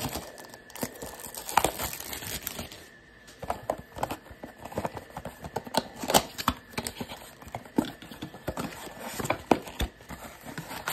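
Cellophane shrink wrap crinkling and a cardboard trading-card blaster box being handled and torn open: an uneven run of crackles, rustles and taps.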